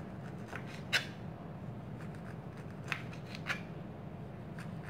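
Kitchen knife slicing an orange on a plastic cutting board: a few sharp, spaced-out taps as the blade goes through the fruit and strikes the board, the strongest about a second in.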